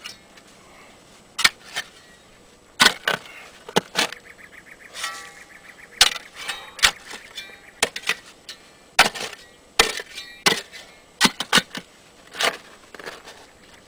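Steel caliche bar (digging bar) slammed repeatedly into caliche hardpan at the bottom of a planting hole: a string of sharp strikes at roughly one a second, chipping up the cemented calcium-carbonate layer.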